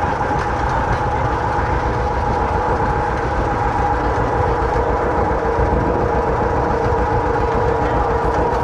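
Vintage John Deere tractor engine running steadily at driving speed while pulling a wagon, heard from the towed wagon close behind.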